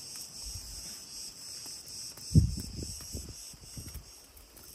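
Steady high insect chorus. A thump comes a little before halfway, followed by soft scuffing.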